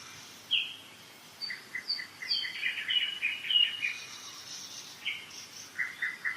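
Several songbirds singing in spring woodland: a run of quick repeated notes, heard twice, overlapping with higher short whistled phrases, over a faint steady background hiss.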